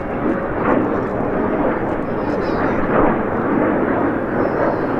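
Jet noise from a Red Arrows BAE Hawk T1 flying the display, a steady roar without breaks.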